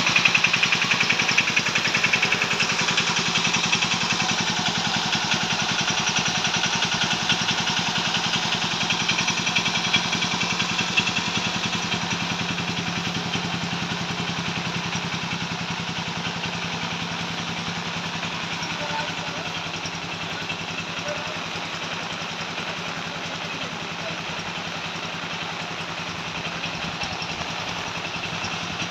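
Eicher 368 tractor's diesel engine idling steadily, slowly growing quieter, under a steady hiss of rain.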